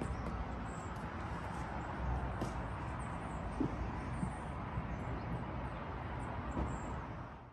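Outdoor ambience: a steady background hiss and rumble with short, faint, high bird chirps scattered through it, and a few soft knocks.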